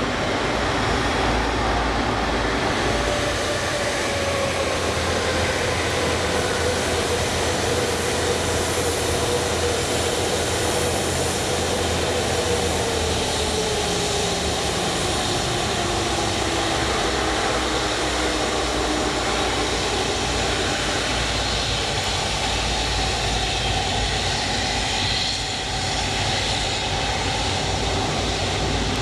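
Rolls-Royce Trent turbofans of a Boeing 777-300 running at taxi power as the airliner rolls past: a steady rushing noise with a whining tone that slowly falls in pitch.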